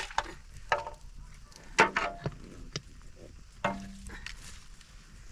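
Irregular knocks and clatter of objects being handled, with two louder knocks about two and four seconds in.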